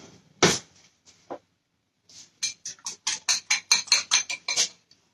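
A single knock, then a quick run of about a dozen light clicks, about four or five a second.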